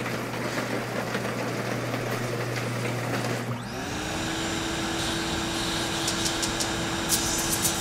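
Roll-up shutter opening with a steady low motor hum. About three and a half seconds in the hum stops and another motor spins up to a steady higher whine, with a few light clicks near the end.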